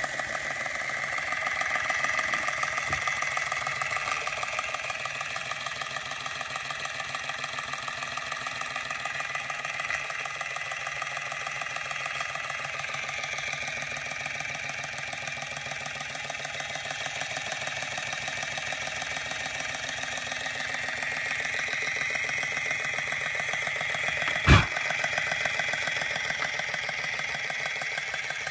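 Georges Carette model 2317 vertical toy steam engine running steadily on live steam, with a fast, even mechanical beat. One sharp click near the end.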